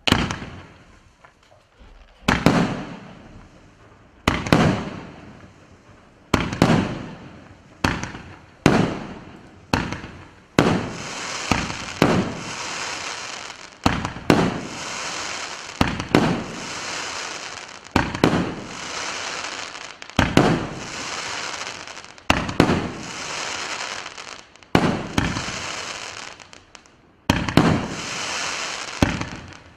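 A 19-shot, 50 mm (2-inch) fireworks cake firing: a sharp launch report every one to two seconds, each trailing off. From about ten seconds in, a continuous crackle of bursting crackling stars sits under the launches.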